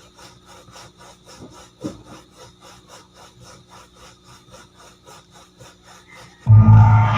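Faint, even rasping strokes like hand sawing, about three a second, over a steady low hum. Near the end, loud bass-heavy music comes in suddenly from the sound system.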